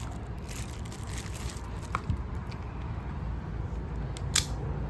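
Spring-loaded switchblade comb being handled, with a faint click about two seconds in and a sharp snap near the end.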